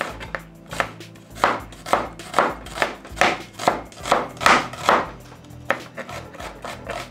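Chef's knife chopping an onion on a cutting board: a steady run of sharp knocks, about two to three a second, which thins out near the end.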